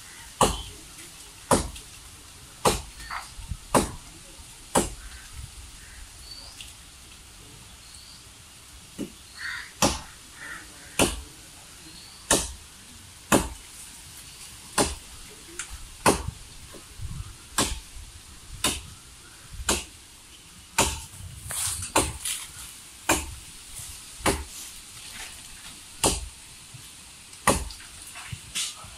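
Sharp chopping strokes of a hand-swung blade biting into a coconut palm trunk, about one a second, with a pause of about four seconds after the first five strokes.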